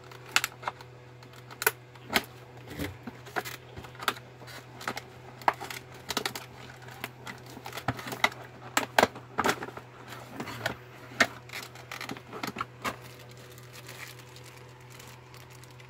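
Cardboard and plastic packaging of a knife set being handled: irregular clicks, taps and crinkles as a knife is worked out of its box, busiest about halfway through, over a faint steady hum.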